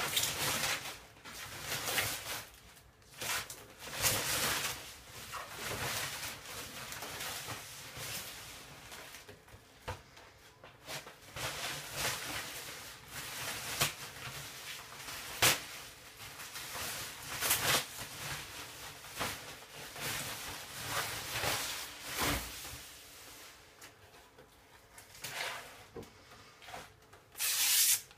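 Packaging being handled during an unboxing: plastic wrapping rustling and cardboard scraping in irregular bursts, with a few sharp knocks, one loud one about halfway through.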